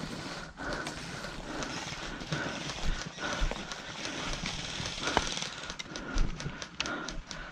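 Footsteps on grass and dry leaves with gear rustling as a player moves into cover, and a few sharp clicks that come thicker near the end.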